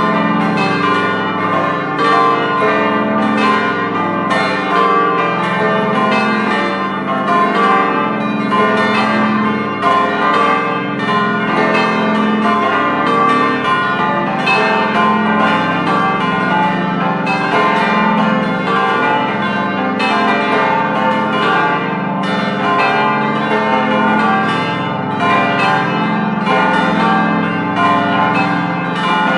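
The eight church bells of a bell gate, the heaviest weighing about 2800 kg, ringing together in a continuous peal. Their strikes overlap into a dense, unbroken wash of deep and high bell tones.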